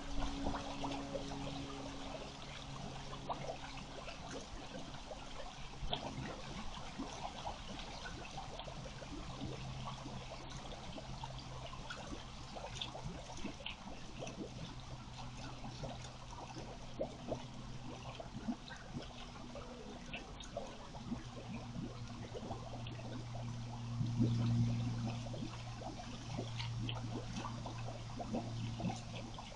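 Water running and trickling, with a steady low hum underneath that swells briefly about three-quarters of the way through.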